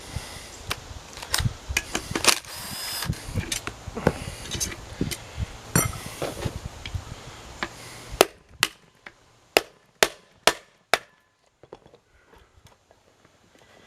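Hand tools knocking and clicking against a 56-frame electric motor as it is being taken apart, then a run of about six sharp taps a little over halfway through.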